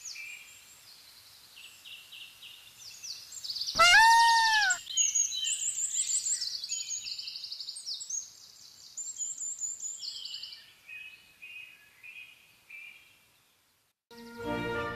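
Small songbirds chirping and twittering, with one loud, drawn-out peacock call about four seconds in. The birdsong fades out near the end.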